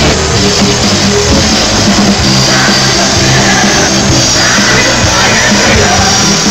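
Live rock band playing loudly on stage, with guitars, drums and sung vocals.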